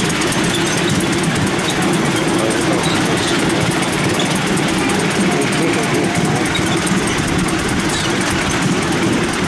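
Steady rumble and rattle of a miniature railway train under way behind the miniature steam locomotive 61003 Gazelle, its wheels running along the track.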